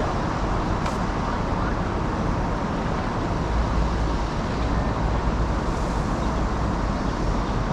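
Steady, loud background noise with a constant low rumble, and a single faint click about a second in.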